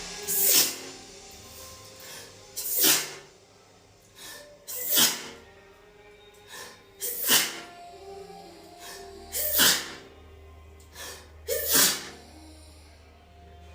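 A woman sneezing again and again in a fit: six loud sneezes about two seconds apart, each preceded by a quick catching breath.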